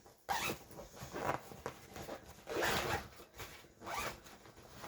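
Fabric packing bags being handled: rustling with brief zipping in several short bursts, the loudest about three seconds in.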